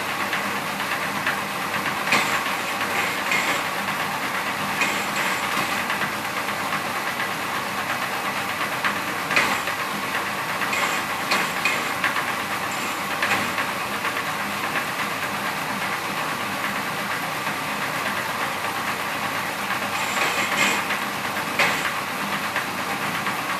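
Satay-skewer shaving machine running steadily, with a short sharp click every few seconds.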